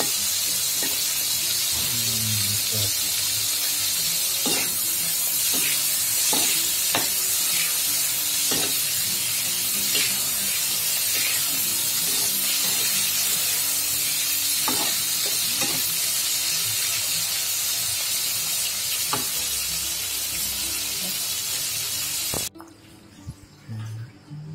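Whole river shrimp frying in hot oil in a wok: a steady sizzle with scattered sharp clicks and pops as the spatula stirs them. The sizzle cuts off suddenly near the end.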